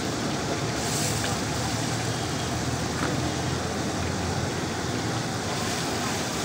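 Food deep-frying in a large karahi of hot mustard oil: a steady, even sizzle of vigorously bubbling oil.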